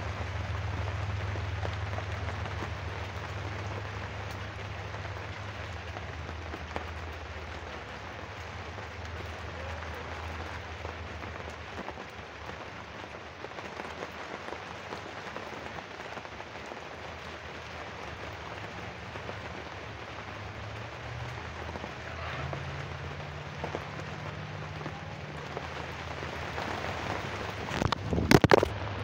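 Steady rain falling on the coop's roof, an even hiss with a low rumble under it. A few loud knocks near the end as the phone is moved.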